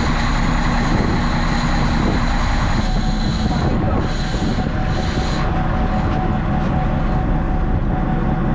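Steady rumble and rush of a fishing boat under way at sea: engine noise mixed with water and wind.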